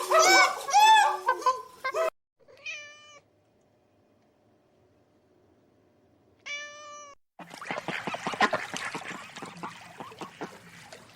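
A run of short animal calls, abruptly cut together: a quick series of high arching cries, then two brief single calls a few seconds apart, then a stretch of rapid clicking and rustling.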